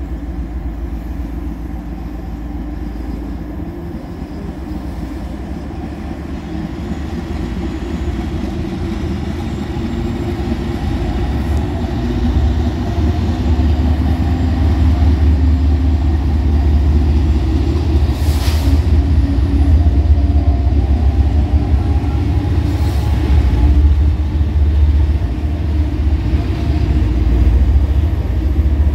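Diesel-hauled train rumbling past, a heavy low rumble that grows louder about a third of the way in and stays loud.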